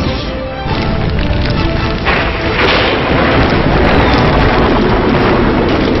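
Loud, dense music with deep booming hits, dipping briefly just under a second in and surging again about two seconds in.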